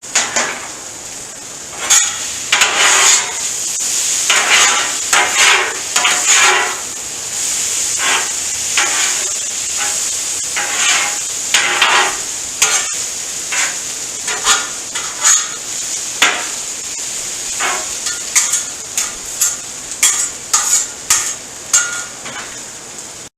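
Fajita vegetables sizzling on a hot gas griddle, stirred and scraped with a spatula in quick irregular strokes over a steady sizzle.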